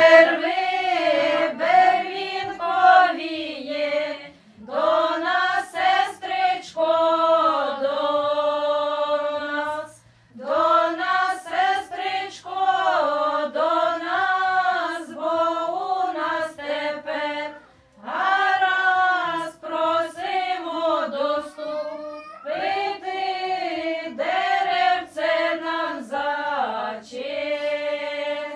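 A group of women singing a traditional Ukrainian wedding song together, in phrases broken by short pauses.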